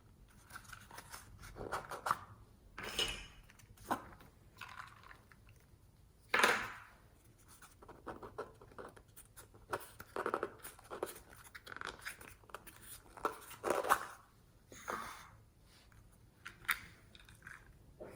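Slime being worked and mixed, giving irregular wet squelches and crackles, some short, some stretched over about half a second.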